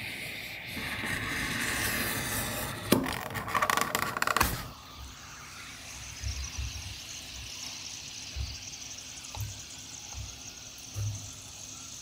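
Knife blade drawing through a sheet of leather with a scraping hiss, ending in a flurry of clicks and knocks about three to four seconds in. Then a steadier, quieter high hiss with a few soft low thumps as the leather soaks in a tub of water.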